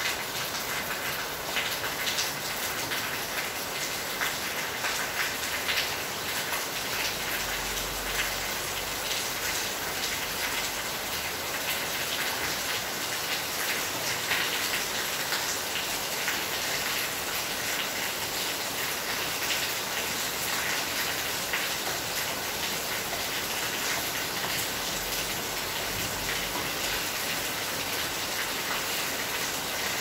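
Steady rain: a continuous hiss dotted with many small ticks of drops landing on surfaces.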